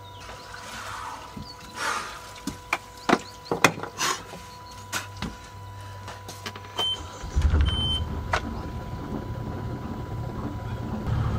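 Knocks and clatter of someone moving about the cockpit, then two short beeps, and the sailboat's inboard engine starting about seven seconds in and running, louder near the end. The engine has been overheating, with algae suspected of blocking its cooling-water inlet.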